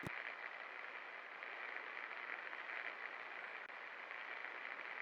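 56-inch Best Electric Works Galaxy II ceiling fan running with a steady, even whir, with a single click right at the start.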